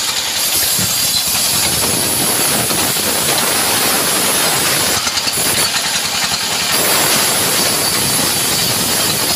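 Engine-driven sawmill band saw running steadily while a mahogany slab is pushed through the blade, giving a loud continuous mechanical noise with a steady high whine on top.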